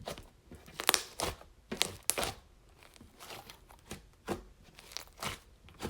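Sticky slime with clay worked into it being kneaded and pulled by hand, giving irregular sharp pops and squelches a second or so apart.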